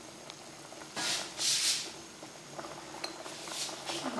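A metal ladle stirring boiling snakehead fish soup in an aluminium pot: a scraping, swishing stroke about a second in and fainter ones near the end.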